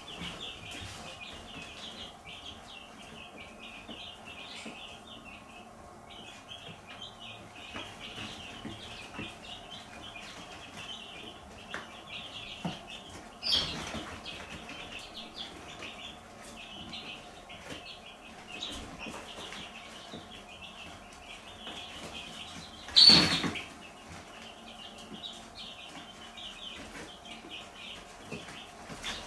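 Domestic chicks peeping continuously in a dense chorus of short high chirps. Two brief louder noises break in, one about halfway through and a louder one about three-quarters of the way in.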